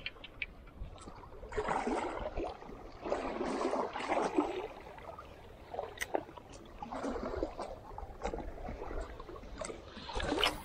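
Sea water sloshing and slapping against the hull of a small boat in irregular swells, with a few sharp knocks about six and ten seconds in.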